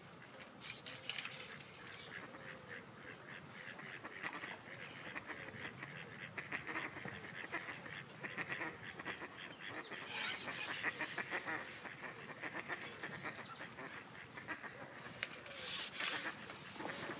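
Waterfowl on the lake calling in a long run of rapid chattering calls. A few short bursts of rustling noise come through about a second in, around ten seconds and near the end.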